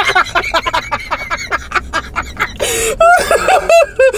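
Loud laughter: rapid breathy bursts at first, turning into short repeated pitched "ha" pulses in the last second or so.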